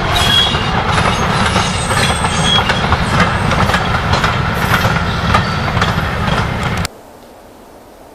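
Freight wagons of a goods train rolling past, wheels clattering over the rail joints with brief high squeals. The noise cuts off suddenly near the end, leaving a faint steady hiss.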